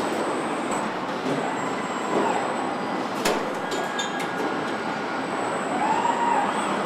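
Car assembly-line machinery running: a steady dense industrial din with a thin high whine over it. There is a sharp clank about three seconds in and short rising-and-falling whines near the end.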